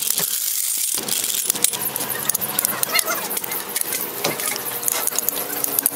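Rapid metallic clinks and clicks of hand tools at a car wheel: a hydraulic floor jack's handle being pumped, then a wrench working the wheel nuts.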